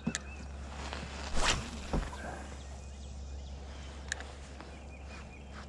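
A cast with a fishing rod: a loud swish about a second and a half in, a knock just after it, and a sharp click near four seconds, over a steady low hum.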